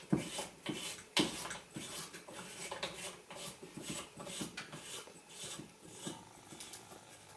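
Handling noise from the metal frame of a set of wheelchair training rollers as its thumb screws are done up: a couple of sharp knocks near the start, then a run of small irregular clicks and rubbing.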